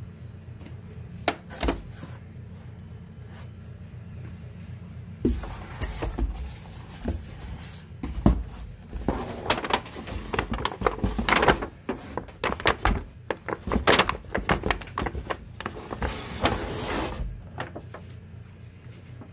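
Cardboard takeout box and foil-lidded aluminium pan being handled: a few light clicks, then from about five seconds in a long stretch of crinkling, scraping and knocks that stops about two seconds before the end. A steady low hum runs underneath.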